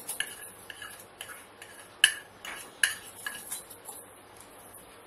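Light, irregular clicks and taps of a small plastic bowl knocking against the rim of a mixing bowl as spices are shaken out of it onto flour, with two sharper knocks about two and three seconds in.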